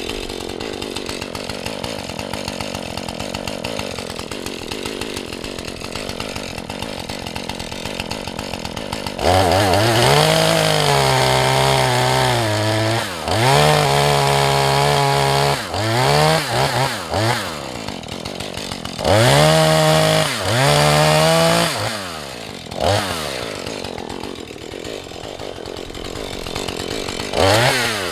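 Husqvarna 435 two-stroke chainsaw idling, then revved hard about nine seconds in. Its note rises and dips again and again as the throttle is worked in a felling cut. It falls back to idle and revs once more near the end.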